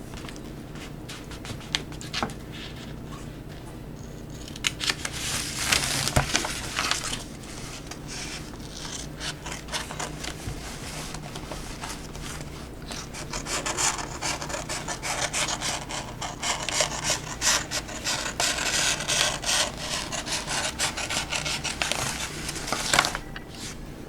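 Scissors cutting through an adhesive sheet of plastic backed with paper, a rasping run of rapid snips along its grid lines, in a short stretch about five seconds in and a long one from about thirteen seconds almost to the end, with quieter handling of the sheet between.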